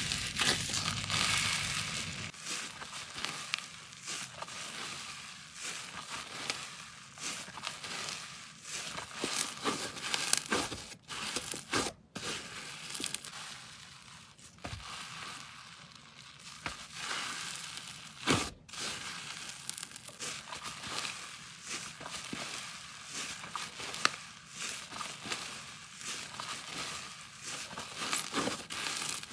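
Slime being squeezed, pressed and pulled apart by hand, giving a continuous run of small crackles and crinkles, broken by a few brief gaps.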